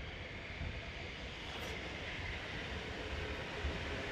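Sangi Railway ED45 electric locomotive rolling slowly on the rails, a steady rumble that grows gradually louder as it approaches.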